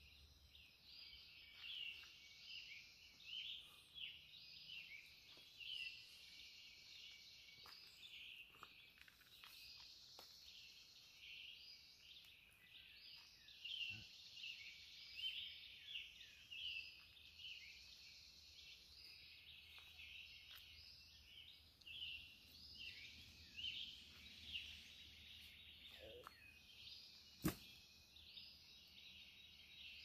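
Faint dawn chorus of songbirds in woodland: many short, overlapping chirps and trills from several birds, with one sharp click near the end.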